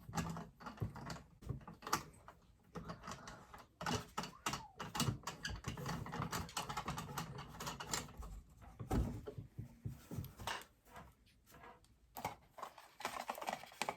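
Irregular light clicks and taps of a bedside lamp's parts being handled and screwed back together.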